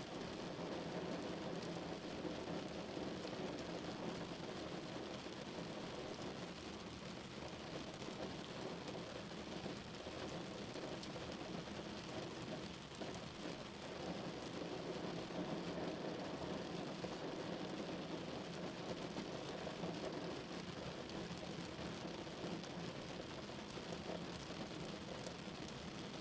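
Steady rain hitting a car's roof, heard from inside the moving car over a constant low road rumble.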